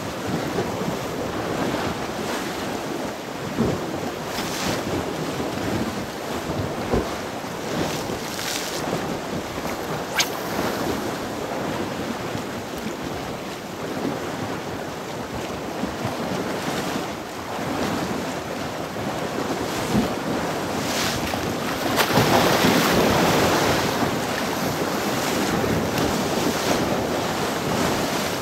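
Sea waves washing against the shore with wind buffeting the microphone. A louder surge of surf comes about two-thirds of the way through, and a few brief sharp clicks stand out.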